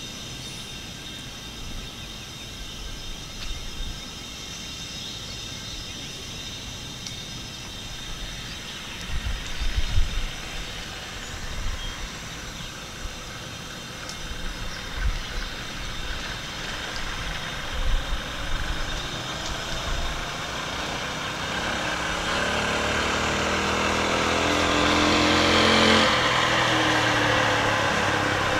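Mini bike's small engine held at full throttle on a top-speed run, faint at first and growing steadily louder as it approaches over the last several seconds. Wind knocks on the microphone in the first half.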